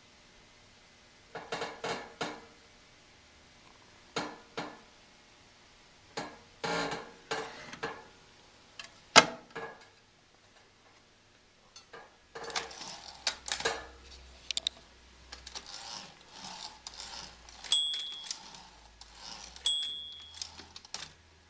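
Olympia SM-9 manual typewriter being typed on: bursts of sharp key strikes with pauses between them, then a faster, steadier run of typing in the second half. A short bell ring sounds twice near the end.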